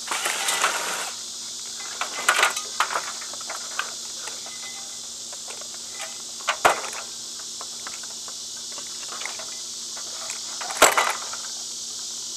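Metal parts of a ceiling fan clinking and rattling as they are handled and taken apart, with a few sharp knocks, the loudest near the end. Crickets keep up a steady high buzz behind.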